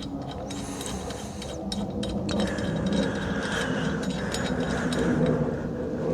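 Small metallic clicks and scrapes of an Allen key turning steering-hub bolts, threading them in loosely by hand, over a low steady hum.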